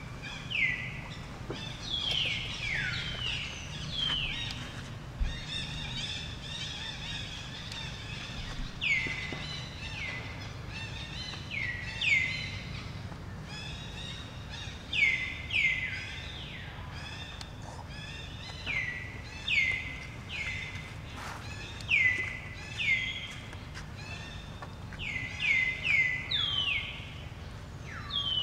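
Repeated high calls, each sliding steeply down in pitch and then briefly holding a lower note. They come about every second or two and sometimes overlap, over a steady low rumble of background noise.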